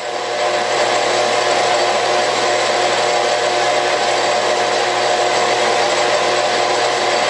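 Metal lathe running at a raised speed while a homemade cone-cutting attachment takes a slow finishing cut on aluminum round stock. The sound is a steady machine hum and hiss that builds over the first second and then holds even.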